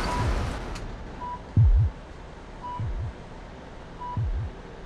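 Patient heart monitor beeping, one short high beep about every second and a half, each with a low double thump, the loudest about a second and a half in.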